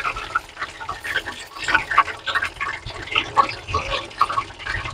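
Breaded chicken pieces deep-frying in hot oil, the oil bubbling and crackling with rapid, irregular pops.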